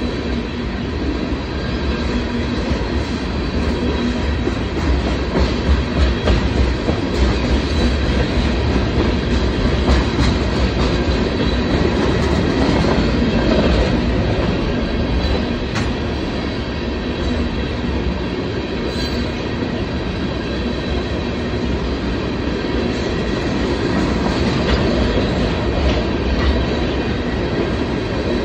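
Empty railroad tank cars of a freight oil train rolling past, a continuous steady rumble of wheels on rail. Scattered wheel clacks over the rail joints and faint steady high ringing tones ride over the rumble.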